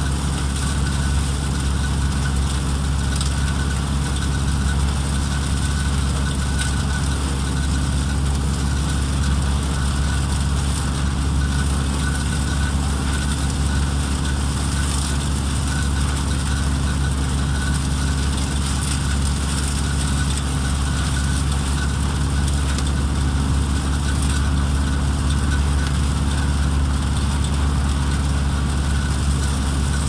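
Peanut threshing machine running steadily as harvested peanut vines are fed in: a constant low mechanical drone with a rushing noise over it, unchanging throughout.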